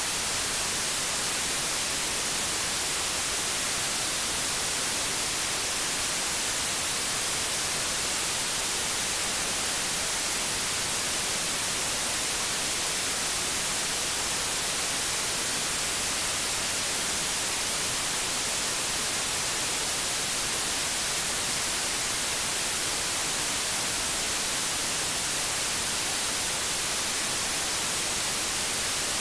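Steady white noise: an even, unbroken hiss, brightest at the high end, with no change throughout.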